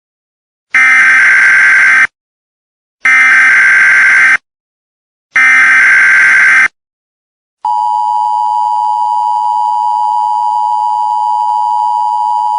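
Emergency Alert System header: three short bursts of buzzing digital data tones, each just over a second long. Then, about eight seconds in, the steady two-tone attention signal starts and holds.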